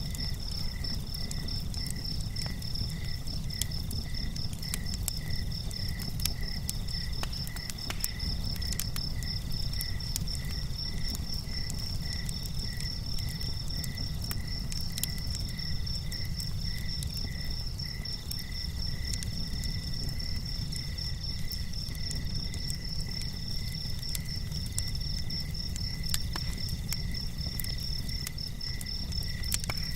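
Several insects chirping at once, cricket-like: a fast high continuous trill, a lower chirp repeating at a slower regular pace, and a middle trill that comes and goes in short bursts. A steady low rumble runs underneath.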